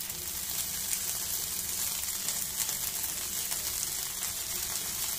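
Fried idli cubes sizzling in oil in a frying pan on low heat, a steady hiss, as tomato sauce goes onto them.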